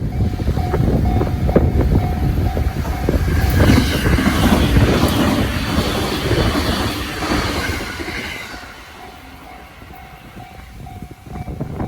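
Train passing over a level crossing: wheels clattering and rumbling, loudest about four to five seconds in and dying away by about eight seconds, while the crossing's warning bell rings on and off.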